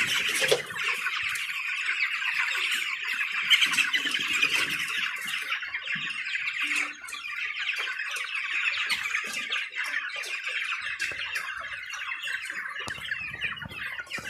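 A flock of 19-day-old chicks peeping and chirping continuously, many voices at once.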